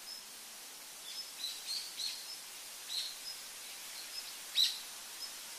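Birds chirping in short high peeps, several louder ones through the middle and the loudest just before the end, over a steady outdoor hiss.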